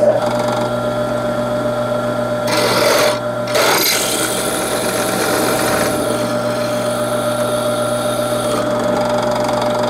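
Benchtop drill press running with a steady motor whine as a 3/16-inch drill bit cuts into a Pietta 1860 Army revolver's rammer, enlarging the pilot hole. The cutting noise grows louder for about a second and a half around three seconds in.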